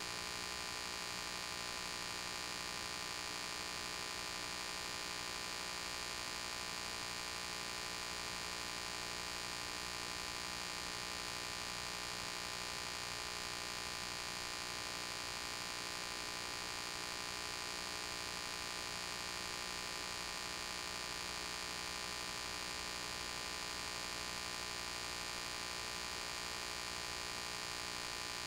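Steady electrical mains hum with hiss, unchanging throughout and with no other sound: the empty audio track of an old silent film transfer.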